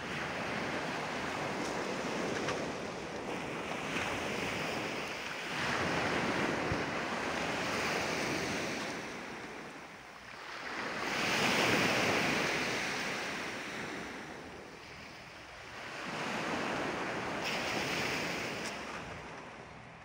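Black Sea surf breaking on a pebble beach, the wash swelling and fading about every five to six seconds, with wind on the microphone.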